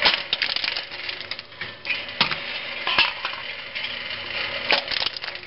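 Homemade motor-driven can crusher at work: irregular metallic clanks and clatters as its piston crushes aluminium beverage cans fed from the hopper. There are sharper knocks about two seconds in, at three seconds and twice near the end.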